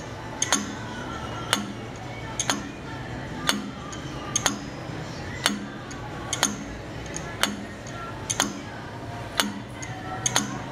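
J. F. Weule tower clock's deadbeat escapement ticking, steel anchor pallets on a brass escape wheel: sharp metallic ticks about once a second with brief ringing, a few of them heard as a quick double click. Each tick is an escape-wheel tooth dropping onto and locking against a pallet of the newly made anchor as the pendulum beats.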